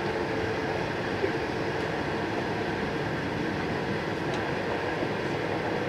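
Interior running noise of an E4 series Max Shinkansen at speed, heard from the upper deck of a motor car: a steady rush of wheel, rail and air noise with a faint steady tone underneath.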